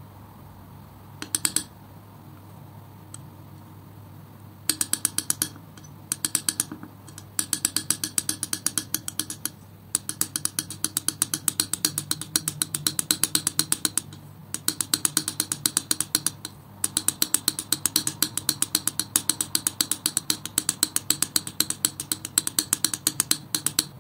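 Palette knife mixing thick acrylic paint: rapid runs of sharp, sticky clicks, about eight a second, in bursts of one to three seconds with short pauses. After one short burst near the start, the clicking goes on almost without a break from about five seconds in.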